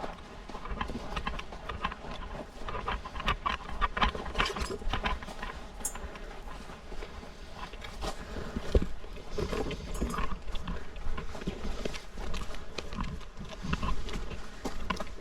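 Footsteps crunching and scuffing over rock and scrub, irregular steps, over a steady low rumble of wind on the microphone.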